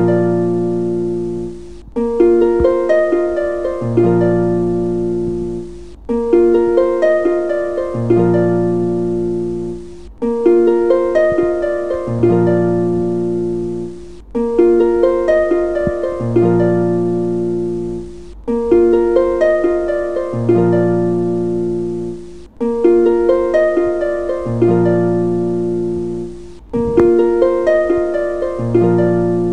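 Background music: a short instrumental loop of ringing, fading notes over a low bass, starting over about every four seconds.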